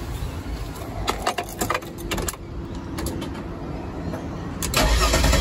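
Several sharp clicks, then a Mercedes ML320 engine starting near the end and running on. It fires up after cracked, dry solder joints in a faulty module were remelted.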